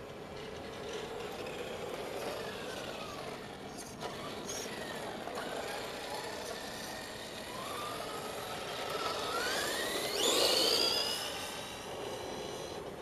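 Electric motor and gears of a Tamiya Desert Gator RC buggy (Super Stock TZ motor) whining as it drives. The pitch falls and rises with its speed, and it is loudest as it comes close about ten seconds in.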